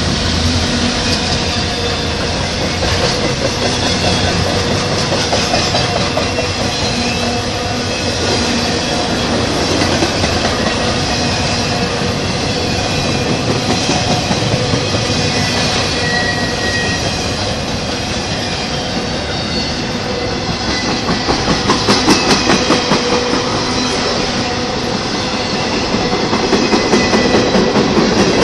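Norfolk Southern freight train rolling past at close range: a diesel locomotive's engine hum for about the first second, then intermodal flatcars carrying truck trailers, with a steady rumble of steel wheels on rail. Rhythmic clickety-clack of wheels over rail joints grows louder about two-thirds of the way through and again near the end.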